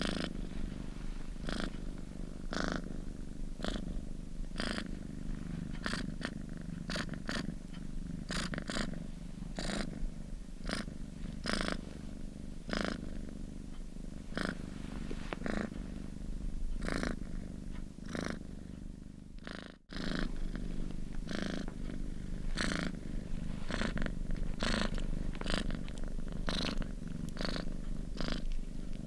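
Domestic cat purring steadily, a continuous low rumble with short sharp clicks over it roughly once a second. The sound drops out for a moment about two-thirds of the way through, then resumes.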